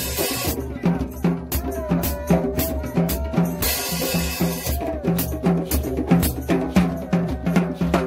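A group of djembe hand drums played together in a steady, driving rhythm, with deep bass strokes recurring among quicker slaps and tones. A wavering high tone sounds over the drums for about three seconds near the middle.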